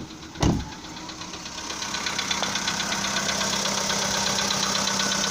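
A single loud thump, then the cold-started Volkswagen Polo Sedan engine idling, growing louder about two seconds in, with a fast, even ticking knock. This is the characteristic cold-start knock, which owners put down to piston slap.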